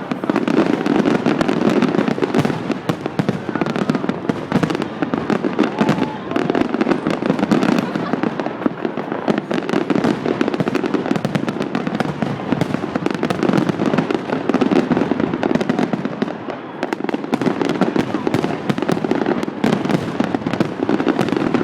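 A fireworks display going off in a dense, continuous barrage of pops and bangs.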